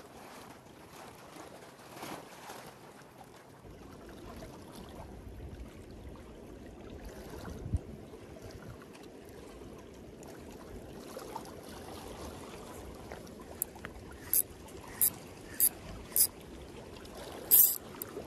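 Seawater lapping among breakwater rocks, with wind on the microphone. Near the end comes a run of short, sharp high ticks about every half second, then a louder clack.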